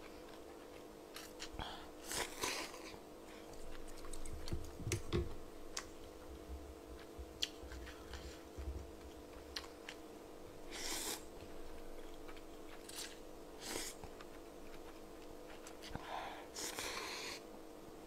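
Eating cold naengmyeon noodles from broth: several slurps of noodles with chewing and small wet mouth clicks between them.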